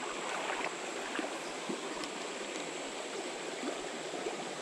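A small creek running over shallow, rocky stretches: a steady rush of moving water, with a few faint ticks.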